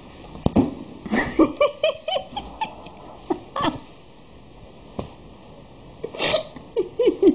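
Kitten mewing in short, quick cries, with a rapid run of them about a second in and another run near the end. A couple of sharp knocks fall between them.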